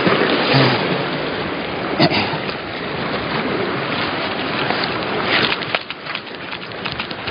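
Wind buffeting the microphone over the sea washing against shore rocks, a steady rushing noise, with a few short clicks about five seconds in.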